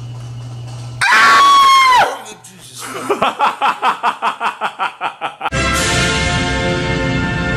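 A loud, piercing shriek about a second in, held on one high pitch for about a second and dropping at its end, to startle a sleeper awake. It is followed by rapid rhythmic laughter, about four or five pulses a second, and then orchestral music starts about five and a half seconds in.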